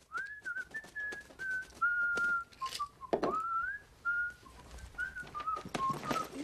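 A person whistling a tune: a run of short, clear notes, some gliding up into the next, with a few knocks and rustles of things being handled.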